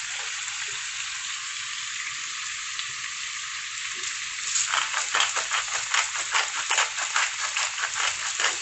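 Shrimp and squid stir-frying in a hot pan with a steady sizzle. About halfway through, a spatula starts scraping and tossing the food, about three to four strokes a second.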